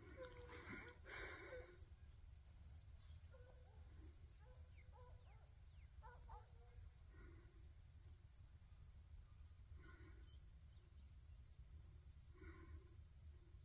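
Faint animal calls, short and repeated every couple of seconds, over a steady low rumble of wind on the microphone.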